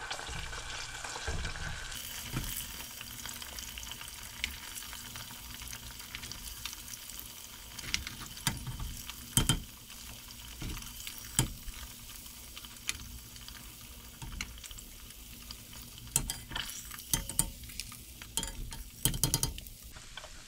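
Breaded catfish fillets frying in hot oil in a saucepan, now golden brown and done: a steady sizzle with frequent sharp pops and clicks as the pieces are lifted out with metal tongs.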